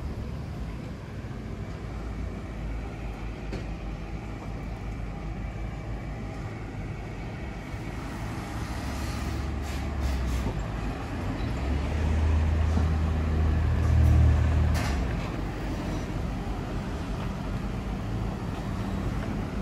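Road traffic: motor vehicle engines and tyres rumbling steadily, with a heavier vehicle swelling to its loudest about two-thirds of the way through, and a few short ticks.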